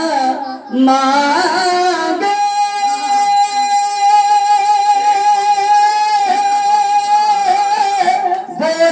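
A man's voice singing a naat into a microphone, drawing out one long held note for about five seconds in the middle before the melody moves on.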